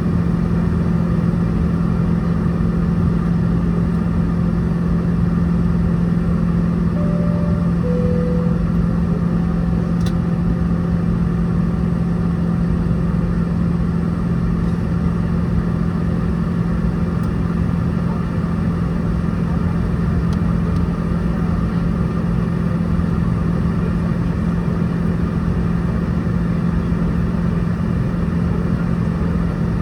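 Steady loud drone inside a Boeing 717's rear cabin, heard from near the tail-mounted engines running at low power, with a constant hum under a broad rumble. About seven seconds in, a soft two-note falling cabin chime sounds.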